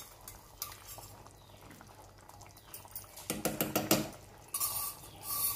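Ladle stirring a pan of simmering fish curry, with light clicks of the ladle against the pan and two louder bouts of stirring in the second half.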